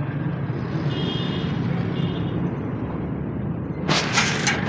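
Car in motion: a steady low rumble of engine and road noise, with a short burst of harsh noise about four seconds in.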